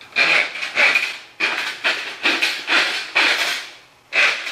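Steel cable of a hand-crank drum drain snake being pulled out through its metal hub by hand, rattling and scraping in a run of short strokes, about two a second, with a brief pause near the end.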